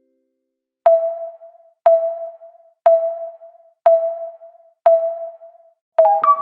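Electronic countdown beeps: five short, identical mid-pitched tones, one a second, each dying away quickly, then a higher, fuller tone near the end.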